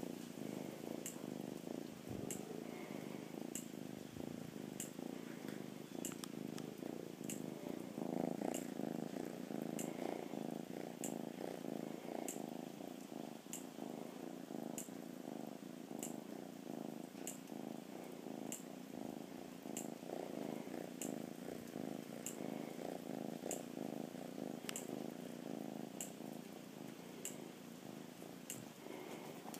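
Domestic orange tabby cat purring steadily and continuously, very close to the microphone: a contented purr.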